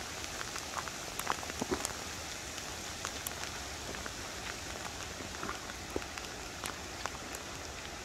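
Heavy rain falling on a lake surface, a steady hiss with scattered sharp drips close by.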